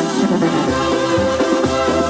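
Mexican banda dance music with trumpets and trombones, played loud and without a break through a DJ's PA speakers.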